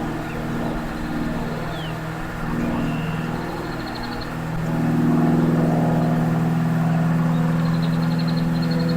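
A motor vehicle engine running steadily, growing louder about halfway through and holding there. Short high bird trills sound twice over it.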